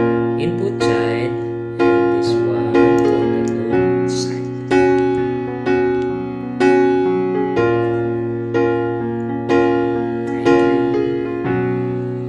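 Background music: electric piano chords struck about once a second, each fading before the next.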